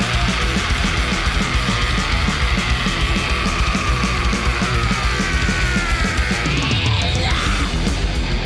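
Heavy metal music with fast drumming and distorted guitar, including a sliding guitar lead line.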